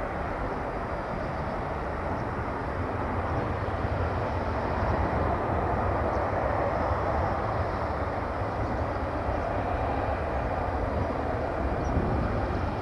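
Airbus Voyager KC3 (A330 tanker) climbing out after take-off on its two Rolls-Royce Trent 700 turbofans: a steady, noisy jet rumble that swells a little about four seconds in.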